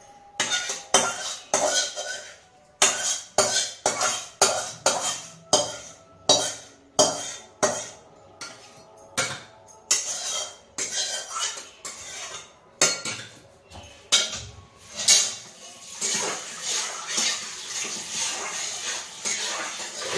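A metal spoon knocking and scraping against a steel bowl as chopped vegetables are scooped in: a quick run of sharp clinks, two or three a second, giving way to a steadier scraping sound in the last few seconds.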